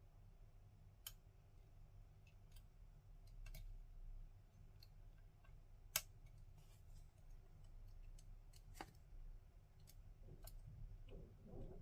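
Faint, scattered small metallic clicks of a lock pick and tension tool working the pins of an ASSA Desmo high-security lock, with one sharper click about six seconds in, over a low steady hum.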